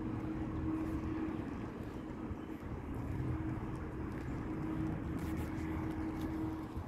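Steady low outdoor rumble with a faint droning hum that fades in and out.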